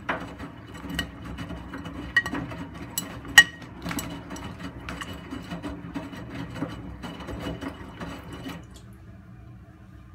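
Miele front-loading washing machine drum turning during a wash, the wet laundry tumbling with irregular clicks and knocks. About eight and a half seconds in the drum stops and only a low hum remains.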